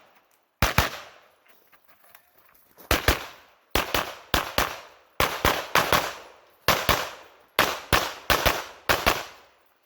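Pistol fired rapidly in quick pairs of shots (double taps) with brief gaps between strings, each shot sharp with a short echo.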